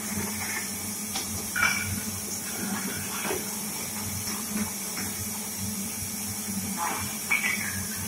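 Manual bottle washing and rinsing machine running: a steady hiss of water jets spraying inside the inverted glass milk bottles over the steady hum of the machine's pump motor, with a few brief sharp sounds.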